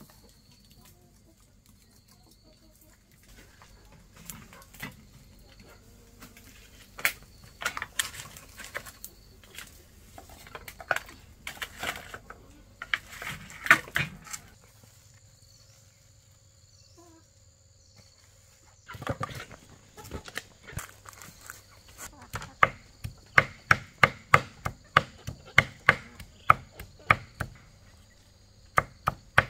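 Knife chopping food: scattered knocks and clatter in the first half, then from about two-thirds in a steady run of chops, two or three a second.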